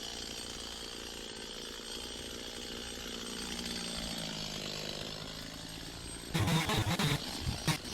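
Petrol chainsaw running steadily at low throttle, then about six seconds in it is revved hard, loud in short spurts.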